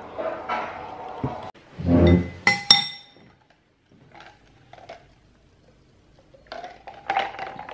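Background music, then a dull thump and cutlery clinking twice against a bowl with a short ring, about two and a half seconds in. Faint scrapes and clinks of eating from the bowl follow, growing busier near the end.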